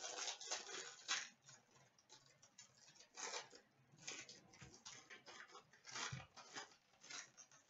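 Faint crinkling and rustling of a foil hockey-card pack wrapper being torn open and handled, in short, irregular crackles.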